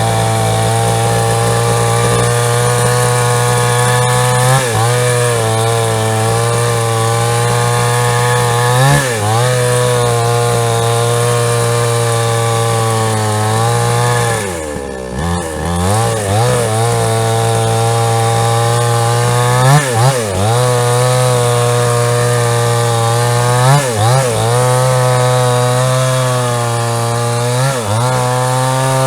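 A JCK chainsaw with a 22-inch bar is running at high revs while cutting a log. Its pitch dips briefly every four to five seconds, and most deeply about halfway through.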